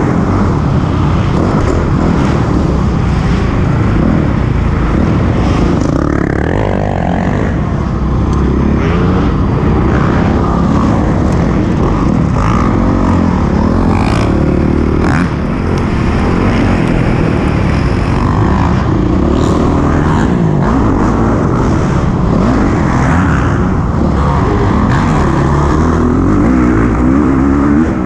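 Honda CRF450R's single-cylinder four-stroke engine revving up and falling back again and again as the dirt bike is ridden hard on a motocross track, heard on board, with an occasional knock.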